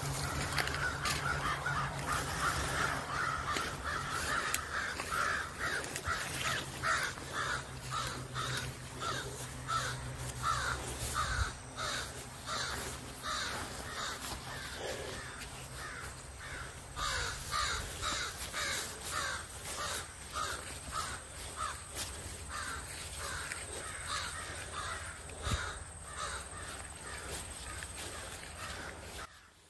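A crow cawing over and over, about two calls a second.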